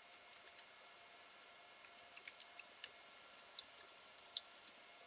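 Faint, irregular clicks of a computer keyboard and mouse, typing in a login name and password. The clicks come in small clusters, the loudest near the end.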